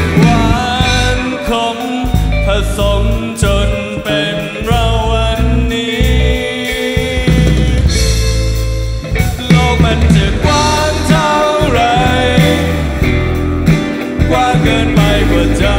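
Live band playing a pop-rock song: drum kit, electric guitars and a male lead vocal singing over them.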